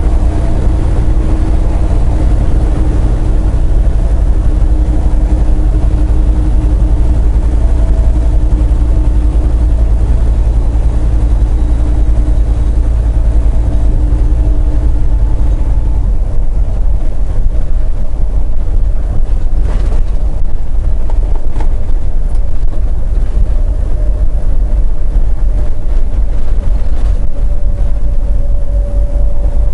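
Semi truck's engine and road noise heard from inside the cab while cruising on the interstate: a steady low drone.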